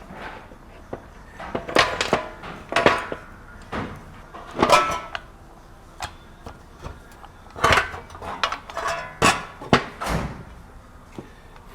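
Metal tool parts clanking and scraping as a wheel bearing press tool is handled and fitted: about half a dozen separate knocks at irregular intervals, some ringing briefly.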